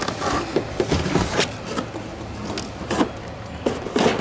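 Cardboard packaging being handled: a long boxed fender scraping and rustling against the shipping box as it is lifted out, with several sharp knocks and bumps, the loudest near the end.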